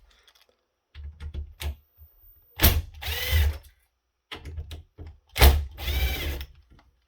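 Cordless drill driving screws out, run in two short bursts about three seconds apart; the motor's whine rises and falls with each run. Clicks and knocks of handling come between the runs.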